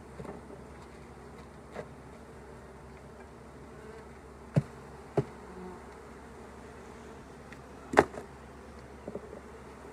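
Honeybees buzzing steadily around an opened hive, with several sharp knocks and clicks from a metal hive tool prying at propolis-stuck frames; the loudest knock comes about eight seconds in.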